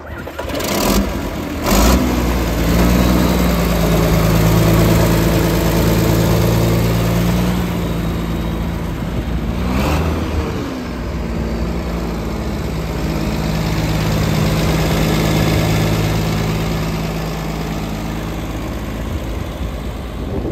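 1976 John Deere 4430 tractor's six-cylinder turbocharged diesel starting, with two sharp strokes in the first two seconds as it catches, then running steadily at idle. About halfway its pitch briefly dips and comes back up.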